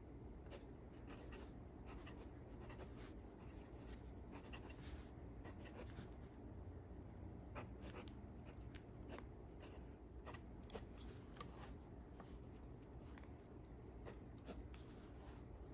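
Steel medium nib of a Ranga Salmon fountain pen writing on lined notebook paper: faint, irregular scratching of short pen strokes.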